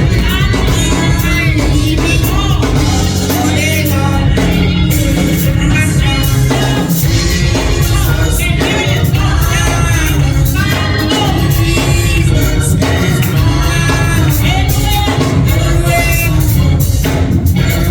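Gospel song during a church worship service: singing over a band with a steady beat.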